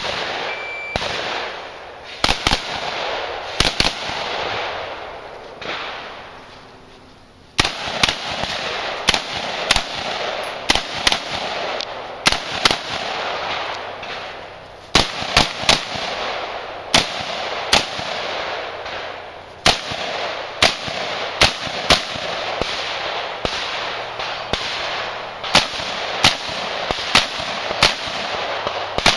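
Gunshots from a Glock 17 9mm pistol fired in quick strings, mostly in pairs, with short pauses between strings. There is a few seconds' lull early on, then steady firing to the end.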